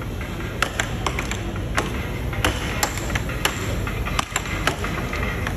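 Air hockey puck clacking against the mallets and the table's rails: about a dozen sharp hits at an uneven pace over steady background noise.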